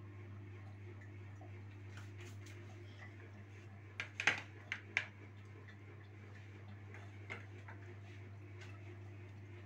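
Hands handling a plate of sliced mushrooms and peppers: light taps and clicks, with a quick run of sharper clicks about four seconds in, over a steady low hum.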